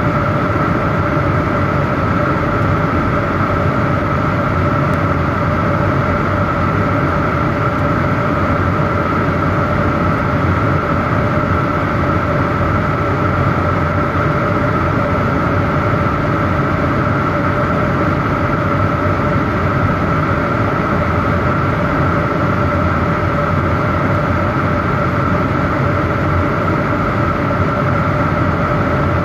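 Airliner cabin noise in flight, heard from a window seat: the steady, unbroken rush of the jet engines and airflow, with a constant hum of two steady tones in it.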